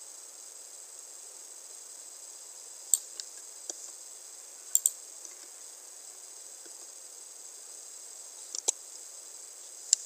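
Scattered sharp clicks of a computer mouse and keyboard, a few between three and five seconds in, including a quick double click, and a couple more near the end, over a steady high hiss.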